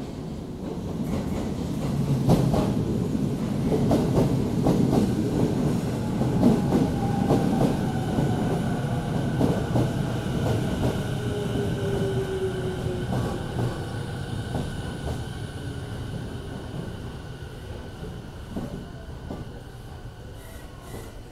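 Electric commuter train pulling in alongside the platform and slowing to a stop. Its wheels clatter over the rail joints, and a whine falls slowly in pitch as it brakes. The rumble swells over the first few seconds, then slowly fades as the train slows.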